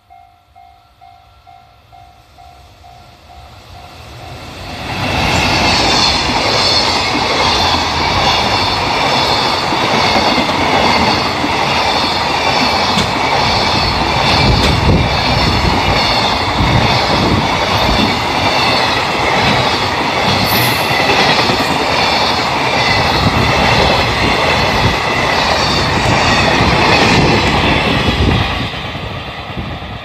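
A Japanese level-crossing warning bell pulses steadily, then about four seconds in a freight train hauled by an EF210 electric locomotive arrives and passes close by. A long run of container wagons follows, clattering over the rail joints for more than twenty seconds. The noise drops off near the end as the last wagons go by.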